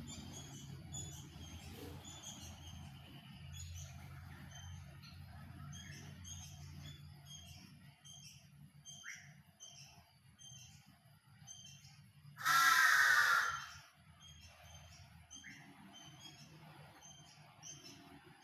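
Small birds chirping over and over in short high notes, with one loud, harsh bird call lasting about a second just past the middle.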